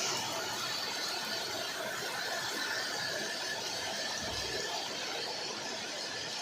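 Heavy rain falling, a steady hiss. There is a brief low thud about four seconds in.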